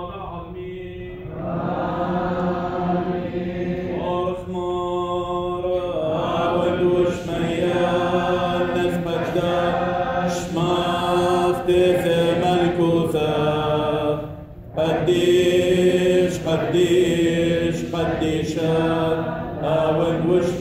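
Syriac liturgical chant of the Assyrian Church of the East, sung in long held phrases by voices in unison, with a brief break about two-thirds of the way through.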